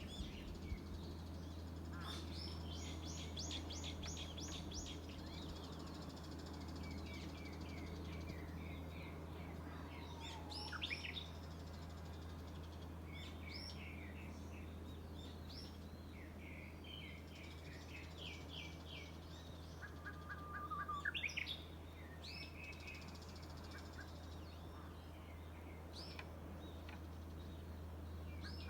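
Several wild birds singing and calling in a forest, with repeated short chirps and quick trills, two louder bursts about 11 and 21 seconds in. A steady low hum runs underneath.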